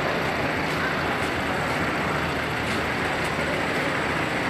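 Steady din of idling vehicles and a gathered crowd, an even background noise with no single event standing out.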